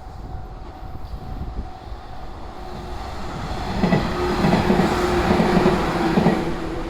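Sanyo Main Line electric train passing over a level crossing, its wheels clattering rhythmically over the rail joints, building up and loudest from about four to six seconds in.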